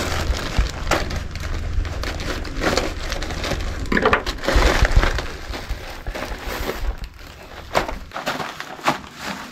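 Plastic courier mailer bag crinkling and crackling as it is cut open with scissors and its wrapped contents are pulled out.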